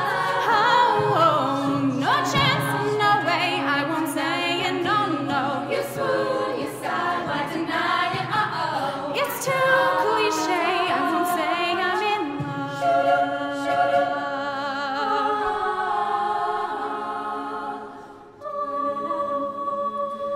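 Women's a cappella group singing: a solo lead voice over backing voices with no instruments. The sound dips briefly about 18 seconds in, then the group comes back in on held chords.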